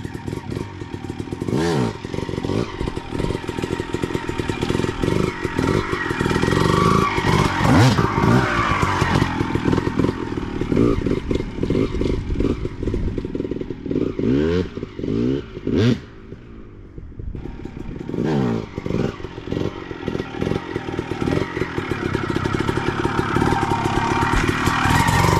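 Two-stroke single-cylinder engine of a 2001 Honda CR250 dirt bike revving up and down as it is ridden, its pitch repeatedly climbing and falling. The throttle drops off briefly about two-thirds of the way in.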